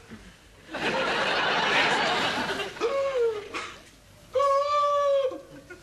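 Studio audience laughing, then a single high, steady held note lasting about a second near the end.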